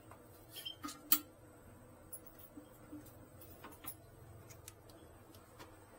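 Scattered light clicks and taps of toilet tank parts being handled, the sharpest about a second in, over a faint low hum.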